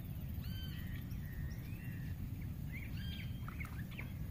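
Birds calling over a steady low rumble: a short arched call heard twice, with a warbling phrase and quick chirps between.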